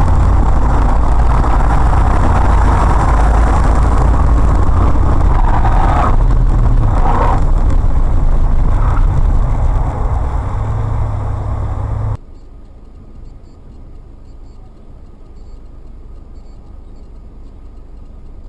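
Car driving noise as picked up by a dashcam inside the car: a loud, steady low rumble of engine and road noise, with a few brief louder swells partway through. About twelve seconds in it cuts to a second, much quieter recording of steady street traffic noise.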